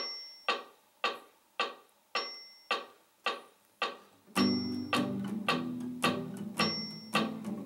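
Steel-string acoustic guitar strummed on the beat, about two strokes a second, along with metronome clicks accented every fourth beat. For the first four seconds the strums are palm-muted, the side of the hand resting lightly on the strings so each chord dies quickly into a dull thud; about four seconds in the strumming opens up into full, ringing chords.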